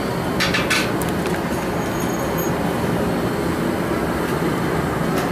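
Steady rushing noise of a glassblowing studio's gas-fired furnace and glory hole burners, with a few short scrapes about half a second in as steel jacks work the hot glass. The jacks are a little squeaky and due for waxing.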